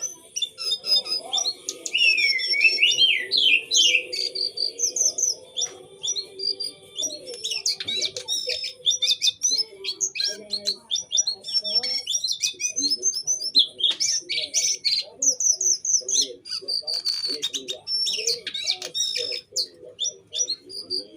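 A cincoang (jongkangan) songbird singing continuously in rapid, high-pitched bursts: quick chirps, trills and fast up-and-down sweeps. These sharp runs are the 'tembakan' (shots) its keepers prize.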